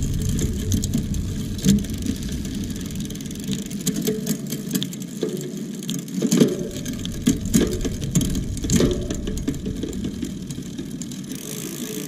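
Bicycle drivetrain turning as the pedals are cranked by hand: the chain runs over a freshly wax-lubed Shimano seven-speed freewheel and through a SRAM 3.0 rear derailleur with a steady whir, with clicks now and then as it shifts through the gears.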